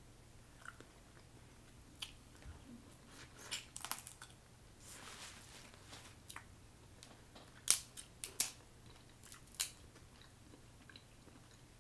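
Snow crab legs being cracked apart by hand and eaten: scattered sharp shell cracks and snaps between quieter chewing, the loudest cracks coming a few in quick succession in the last third.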